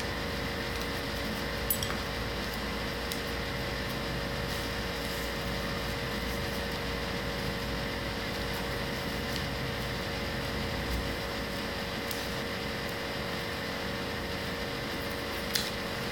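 Steady mechanical hum with a fixed drone, of the kind a room fan or air conditioner makes, with two short light clicks, one about two seconds in and one near the end.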